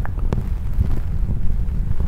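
Low, wind-like rumble on a foam-windscreened microphone from a hand moving close to it in an ASMR plucking-and-pulling routine, with a few faint clicks.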